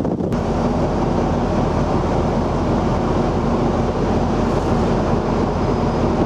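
A Japan Coast Guard patrol vessel under way: a steady low engine hum with a constant rush of wind and water over the deck, cutting in just after the start.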